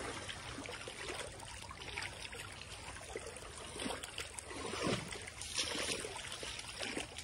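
Muddy floodwater running through a swollen creek and washing over a submerged wooden plank walkway: a steady sound of flowing water, louder in places.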